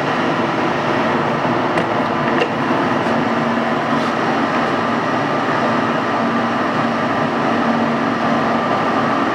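Servo SE1640 engine lathe running under power, its 7.5 HP drive and spinning chuck making a steady mechanical hum with a faint steady whine. A few light clicks come about two and four seconds in.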